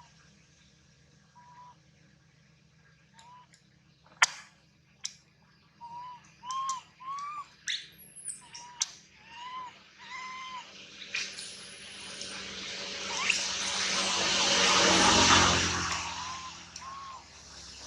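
A dozen or so short, arched chirping calls at irregular intervals, mixed with a few sharp clicks. About two-thirds of the way through, a rushing noise swells up, peaks and fades away.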